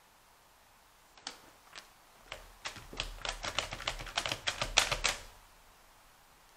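Hands handling a hard-plastic toy playset tower: two single clicks about a second in, then a quick run of plastic clicks and knocks for about three seconds that stops suddenly.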